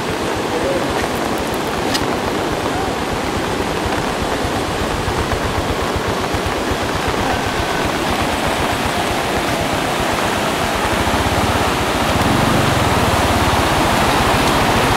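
Floodwater rushing and pouring across a road: a steady rushing noise that grows a little louder and deeper about eleven seconds in.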